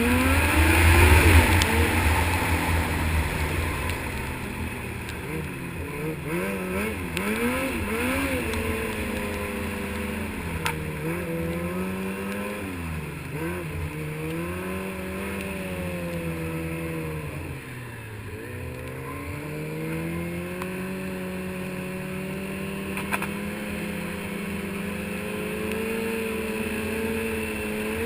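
Snowmobile engine under way, loudest as it accelerates at the start, then revving up and down with repeated throttle changes. About two-thirds of the way through it drops off briefly, then runs steadily with its pitch slowly rising, over a constant rushing noise.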